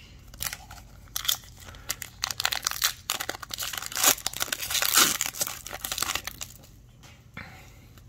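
A hockey trading-card pack's wrapper being torn open and crinkled by hand, a dense run of crackles that builds up and then dies away about seven seconds in as the cards are pulled out.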